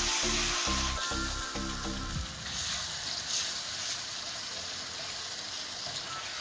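Lamb, spice masala and freshly stirred-in yogurt sizzling in hot oil in a frying pan, a steady hiss as the masala is fried.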